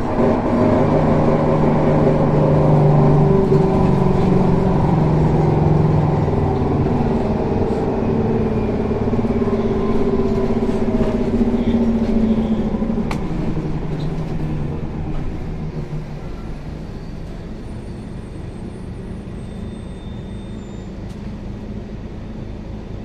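Scania K360 bus running, its engine tones shifting slowly and growing fainter over the second half. One sharp click about halfway through.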